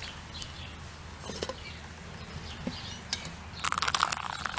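Brewed coffee dripping from a silicone drip coffee brewer into the cup below: a few scattered soft drips, then a quicker run of small clicks near the end.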